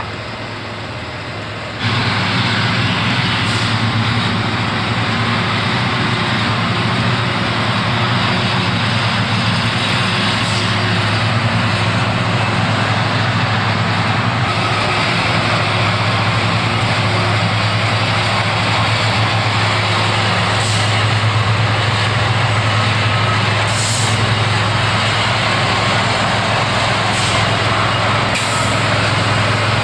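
Heavy diesel work machinery running steadily with a strong low hum, cutting in abruptly about two seconds in, with several short high hisses along the way.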